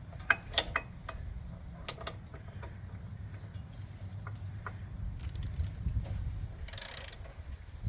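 Hand tools working a crash-bar bolt tight on a motorcycle: scattered sharp metallic clicks and taps, loudest about half a second in, with a short rustle near the end, over a steady low rumble.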